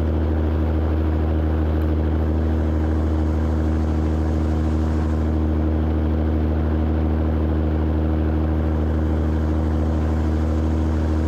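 Caterpillar 3406B diesel engine of a Peterbilt 362 cabover pulling steadily up a mountain grade: a constant low drone holding one pitch, with road and wind noise, heard through a camera mounted on the truck.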